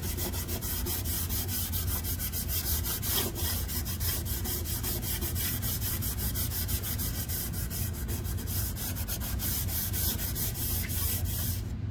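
Scotch-Brite abrasive pad scrubbing the steel blade of a rusty back saw in quick, even back-and-forth strokes, cleaning off rust-bath residue.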